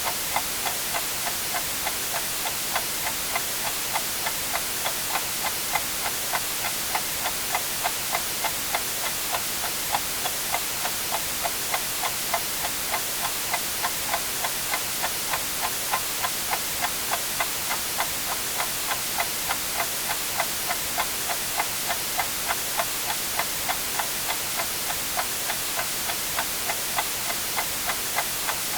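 Mechanical clock ticking evenly, about two ticks a second, over a steady bed of white noise hiss.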